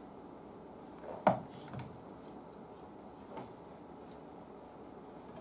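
Small parts or hand tools being handled on a workbench during a repair: one sharp click about a second in, a softer click just after, and a faint tick later, over a low steady background.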